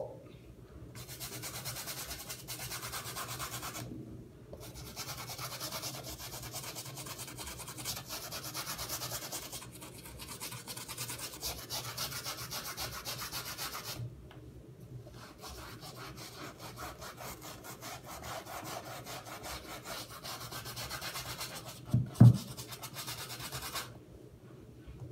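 Toothbrush scrubbing toothpaste into a Jordan sneaker in rapid back-and-forth strokes, stopping briefly a few times. About 22 seconds in there is a sharp knock, the loudest sound.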